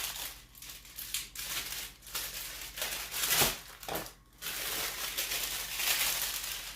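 Plastic wrapper of a garlic bread loaf crinkling in a series of short rustles as it is cut and pulled open with scissors.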